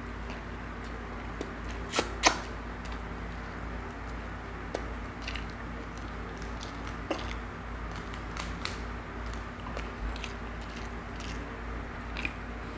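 Close-up eating sounds: chewing and the soft wet picking of fingers pulling apart a cooked tilapia head, with scattered small clicks and two sharper clicks about two seconds in. A faint steady hum runs underneath.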